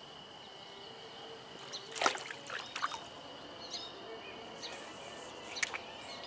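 A few short splashes and drips of stream water, the loudest about two seconds in, over a steady high insect drone.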